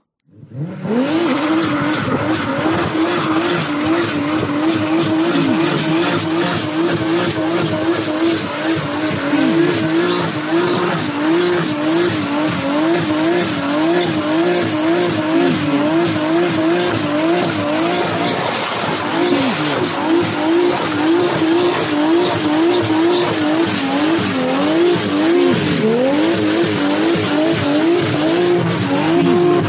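Racing car engine running hard, its pitch wavering rapidly up and down about twice a second with short dips, as if the throttle is being worked through corners.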